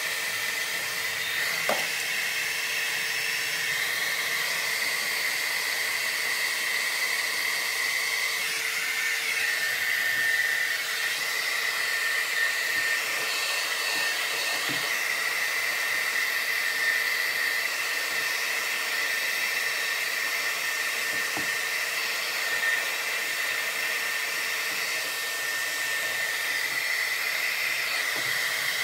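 Handheld hot-air blower running steadily, warming carbon fiber vinyl wrap on a car door handle: a rushing of air with a steady high whine, and a few faint clicks.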